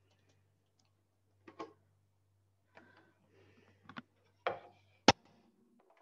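Scattered knocks and clicks of kitchen equipment being handled. The last is a sharp click about five seconds in and is the loudest. A faint low hum stops just after it.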